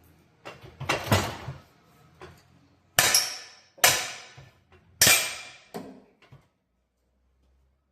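Hammer striking metal: three hard blows about a second apart, each ringing briefly, after some lighter knocks and clatter.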